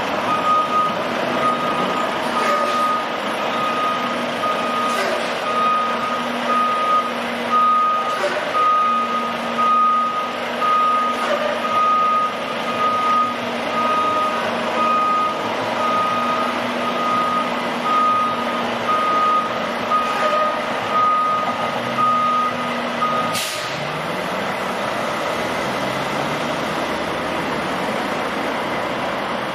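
Volvo semi truck reversing, its backup alarm beeping steadily about once a second over the running diesel engine. About three quarters of the way through the beeping stops with a short burst of air as the truck halts, and the engine runs on.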